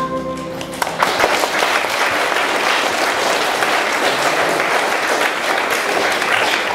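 The last note of a sung song with accompaniment dies away just under a second in, and an audience breaks into steady applause, many hands clapping together.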